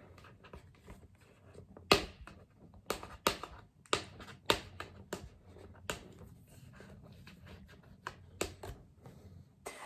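Hands working at the packaging of a keyboard's product box to get it open: irregular sharp clicks and taps with soft rustling and scraping between them.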